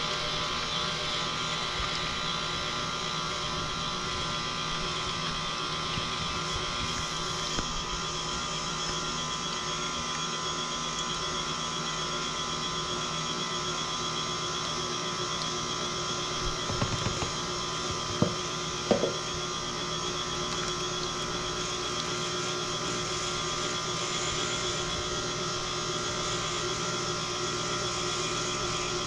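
KitchenAid Classic Plus stand mixer running steadily at low speed, its wire whisk beating eggs and heavy cream in a stainless steel bowl. A few brief knocks come a little past the middle.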